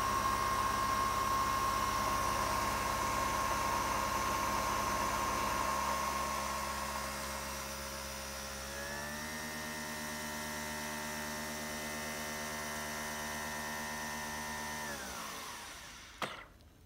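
Nespresso Virtuo machine brewing: its motor spinning the capsule and its pump give a steady mechanical whine that steps up in pitch about nine seconds in. About fifteen seconds in the whine slides down and winds down as the brew ends, followed by a single click.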